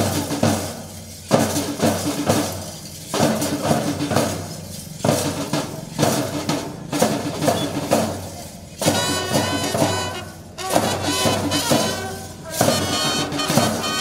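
Live light-music band playing an instrumental passage: a steady drum beat with tambourine, joined about nine seconds in by a held melodic line.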